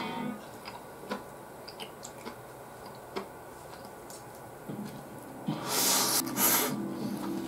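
Eating sounds: a wooden spoon lightly clicking against a ceramic plate of chicken rice and chewing, small clicks about once a second. Near the end a loud breathy hiss in two parts.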